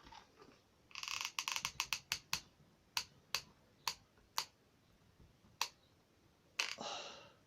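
Card being handled and worked by hand: a quick run of crisp clicks and crinkles about a second in, then single sharp clicks spaced half a second to a second apart, and a short rustle near the end.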